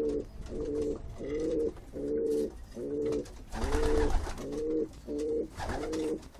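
Domestic pigeons cooing in short repeated phrases, about two a second. A burst of wing flapping comes about four seconds in.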